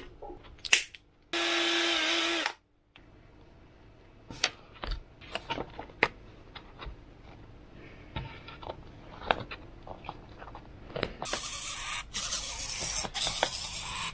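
A small electric drill whining for about a second, used to modify small plastic control horns, followed by light clicks of small parts being handled. From about eleven seconds in, a loud, rough scraping hiss with short breaks.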